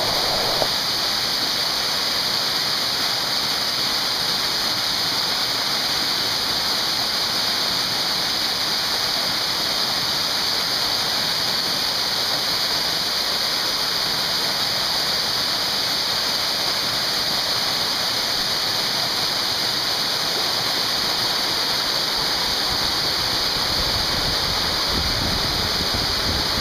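Loud, steady rush of a waterfall pouring over rock, unchanging throughout.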